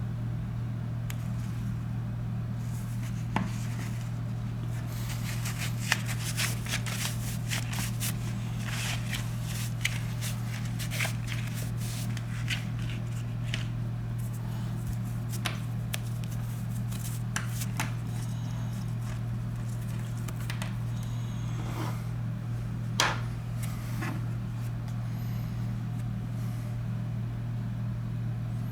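Scattered light clicks and taps from handwork on a phone, such as small tools and parts being handled, over a steady low hum.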